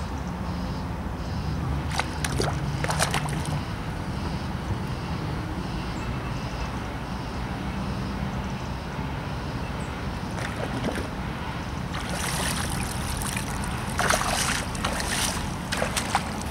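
Water sloshing and splashing in a few short bursts as a landed carp is slipped back into the lake, over the steady low drone of a machine running in the background.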